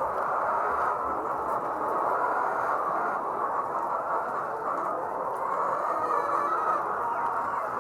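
A large flock of layer hens clucking and chattering together in a steady, unbroken din.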